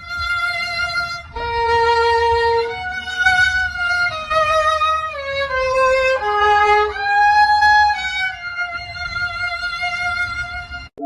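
Solo violin playing a slow melody of long held notes, stepping from one pitch to the next and sliding into a few of them.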